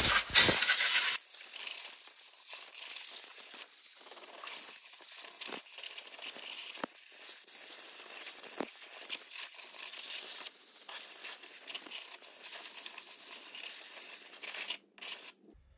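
Compressed-air blow gun hissing as it blows dust and debris out of the engine bay around the belt tensioner mount. It starts with a sharp loud blast, keeps hissing unevenly as the nozzle moves, and cuts off near the end.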